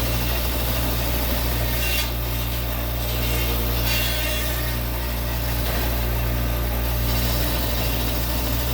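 Bandsaw running with its blade cutting through a log, a steady motor hum under the sawing noise.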